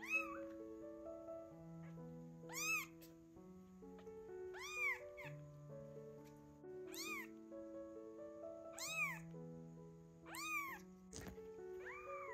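Two-week-old kittens meowing loudly, about seven high calls each rising then falling in pitch, one every two seconds or so: calling for their mother. Background music with held notes plays underneath.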